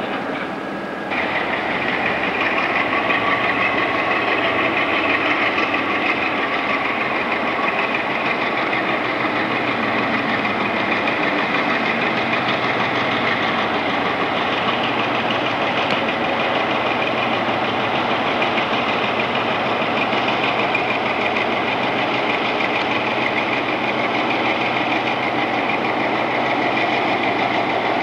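Diesel locomotive engine running steadily as the locomotive moves slowly. A steady high-pitched whine joins the engine sound about a second in, and the sound then holds steady.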